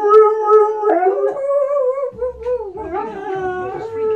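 A dog howling in one long, wavering howl that carries on with only brief breaks, its pitch drifting up and back down.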